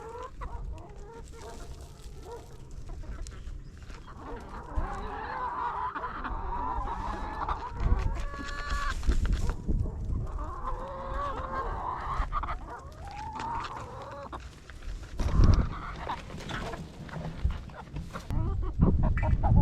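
Chickens clucking and calling on and off, with scattered small clicks and two low thumps, about eight seconds in and again past fifteen seconds.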